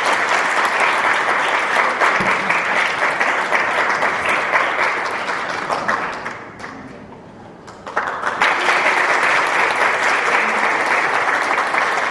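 Congregation applauding, a dense, steady clapping that dies down about six seconds in and swells back up a little under two seconds later.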